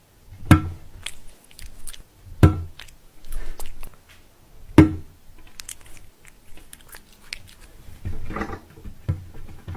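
A run of sharp clicks and crackles, with three loud knocks about two seconds apart in the first five seconds.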